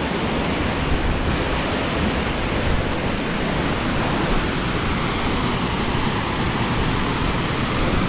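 Waterfall pouring into a pool: a loud, steady rush of falling water.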